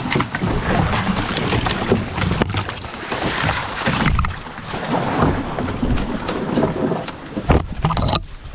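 Canoe passing through a shallow riffle under overhanging alder branches: rushing water with irregular crackles and clicks of twigs brushing the boat and gear, and wind buffeting the microphone with a low rumble. The sharpest snaps come a couple of seconds in and again near the end.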